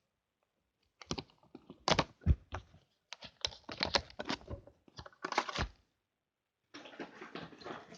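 A cardboard advent-calendar drawer and a plastic eyeshadow palette being handled: a quick run of clicks, taps and knocks starting about a second in, then a stretch of rustling near the end.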